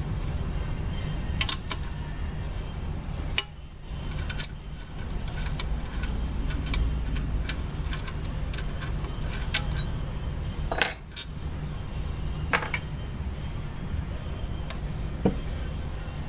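Small metal parts and hand tools clinking and knocking now and then during disassembly of a sander, with a few sharp clicks spread through, over a steady low hum.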